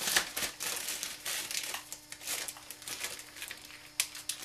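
Plastic crinkling: a Butterfinger candy bar being put into a zip-top plastic bag, with irregular crackles and rustles throughout.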